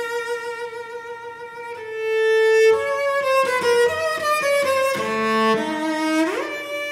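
A chamber ensemble with cello and violin playing contemporary classical music. A held note swells about two seconds in, and quick note changes follow. A rising slide comes near the end.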